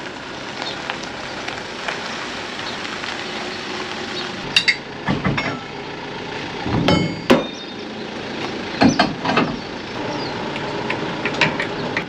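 Metal clanks and clinks from a box trailer's drawbar hardware (coupling, jockey wheel and safety chain) being handled, a handful of sharp knocks, some with a brief metallic ring.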